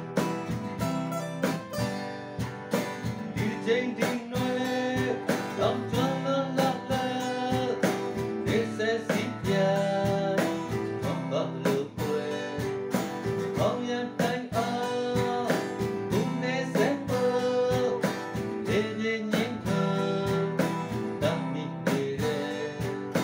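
Two acoustic guitars strumming a song over a steady cajón beat, with a man singing the melody in Burmese.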